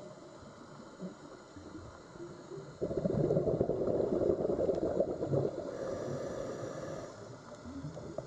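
Scuba diver's exhaled bubbles from the regulator rushing past an underwater camera, over a low murmur of water. The bubble rush starts suddenly about three seconds in and fades away over the next few seconds.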